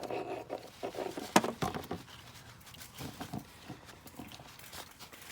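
Irregular rustling and small clicks of hands wiping soldered wire splices clean of flux with a rag, with one sharp click about a second and a half in.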